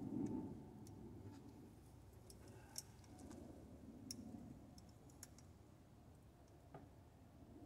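Near silence: faint background murmur with a few scattered light clicks.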